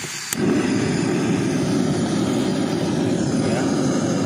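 Portable gas stove burner lit: an igniter click, then the flame catches about a third of a second in and burns steadily with a loud, even rushing noise.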